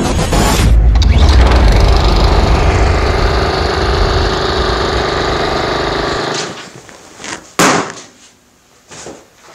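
Channel intro sound effect: a dense, deep rumble with held tones under it, which cuts off about six seconds in. A few sharp knocks follow, the loudest a little after seven and a half seconds.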